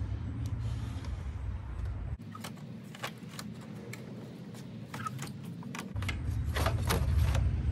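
Scattered light clicks and clinks of plastic and metal engine-bay parts and fittings being handled in a car's engine bay, thickest in the middle and again near the end, over a low rumble that drops out about two seconds in and comes back near the end.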